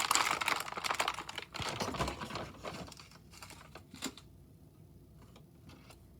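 Packaging of a 3D-printer filament spool being unwrapped and handled: rapid plastic crackling and clicking, loud for the first two and a half seconds, then thinning to scattered clicks, with one sharper click about four seconds in.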